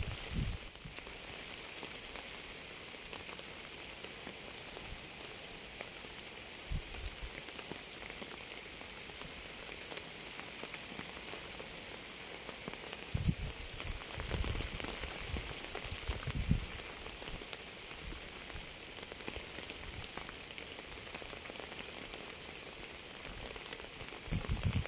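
Steady rain falling, an even hiss with fine drop patter, broken a few times by short low thumps near the middle.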